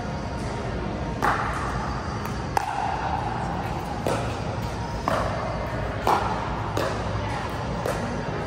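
Pickleball paddles hitting a plastic pickleball back and forth in a rally: about seven sharp pocks, roughly one a second, echoing in a large indoor hall over a steady low hum.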